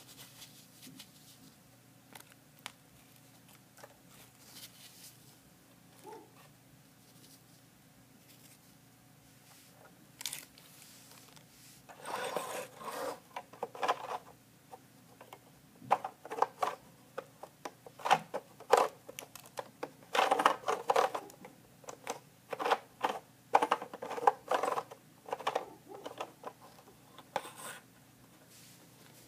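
Crumpled tissue paper rustling and crinkling as it is handled and packed into a Lego model, with light clicks of plastic bricks. Only faint clicks for the first part, then irregular bursts of crinkling from about twelve seconds in.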